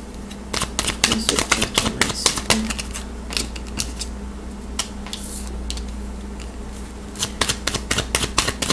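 Deck of oracle cards being shuffled by hand, a rapid run of crisp clicks as the cards slap together, thinning out for a few seconds in the middle and picking up again near the end, over a steady low electrical hum.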